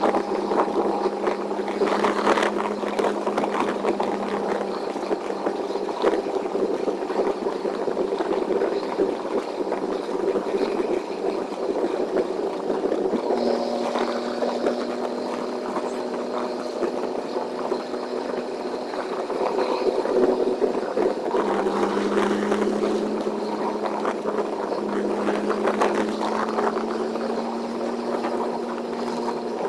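Semi-truck driving at highway speed, heard from the cab: a steady drone of engine, road and wind noise. The engine's hum shifts in pitch about halfway through and again a little later.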